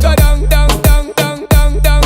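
Dancehall-style reggae track: a heavy bass drum beat with a wavering melodic line over it.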